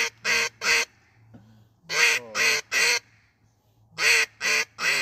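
A bird calling: nine short calls in three quick runs of three, the runs about two seconds apart.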